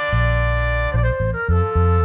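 Background music: a melody on a reedy wind instrument, changing note about every half second, over a pulsing bass line.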